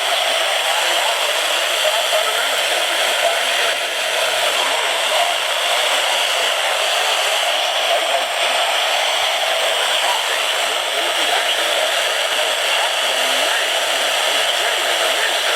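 Steady, unbroken hiss of radio static from a radio receiver, with no tones or clear voice.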